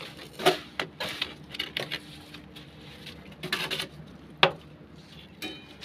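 Metal mortar pan knocking and scraping against brickwork as it is handled, in a few separate knocks. One sharp clack comes about four and a half seconds in, and a brief ringing tone follows near the end.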